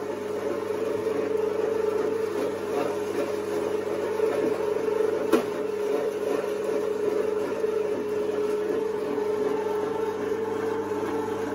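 Alveored electric meat grinder running steadily, its motor giving a constant hum while it minces meat. A single sharp knock is heard about five seconds in.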